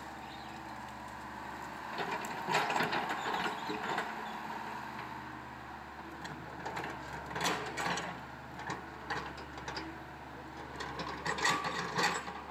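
Caterpillar excavator's diesel engine running steadily, with bursts of cracking and clattering about two seconds in, around seven seconds and near the end.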